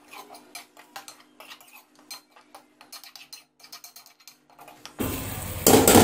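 Metal ladle scraping and clinking against a metal karahi as mutton karahi is stirred while it fries in butter. About five seconds in, a loud frying sizzle comes in suddenly.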